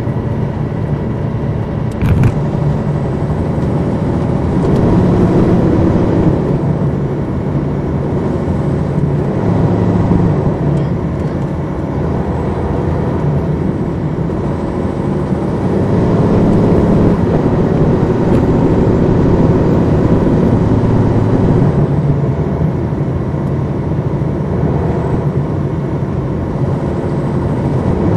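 Detroit Diesel Series 60 diesel engine of a 2002 MCI D4000 coach, heard from inside the bus while it is driving, swelling and easing in turns as the load changes. There is a sharp knock about two seconds in.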